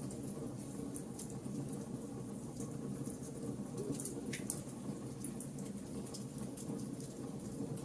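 Wood fire burning in a fireplace: a steady low rush of flames with irregular small crackles, and one sharper pop about four seconds in.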